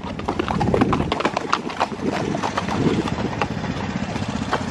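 Horses walking on a dry dirt and sand trail, their hooves making an uneven clip-clop of many strikes.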